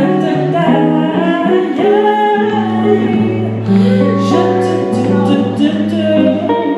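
Live soul band: a woman singing into a microphone, her voice sliding between notes, over band accompaniment, with a low bass note held through the second half.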